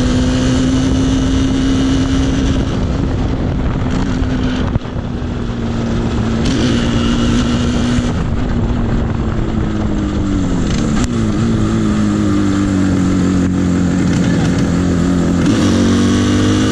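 Yamaha RD350's two-stroke parallel-twin engine running on the move, heard from the rider's seat. The engine note steadies, drops briefly in level about five seconds in, falls in pitch as the bike slows around ten to thirteen seconds in, and picks up again near the end.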